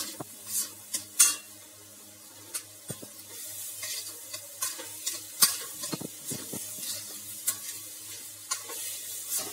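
A steel spatula scraping and stirring soaked urad dal around a stainless steel kadai in irregular strokes, the strongest about a second in, with the hot lentils sizzling.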